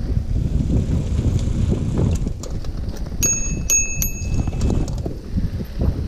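Bicycle bell rung three times in quick succession about three seconds in, each ding ringing briefly, against a steady low rumble from the moving bike.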